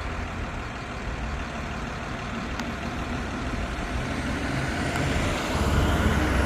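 A school bus approaching along the road, its engine and tyre noise growing louder over the last second or two.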